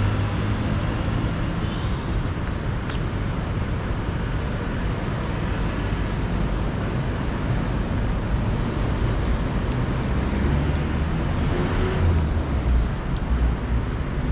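City street traffic: motor vehicles running by with a steady low engine rumble and road noise. A few short high-pitched chirps come near the end.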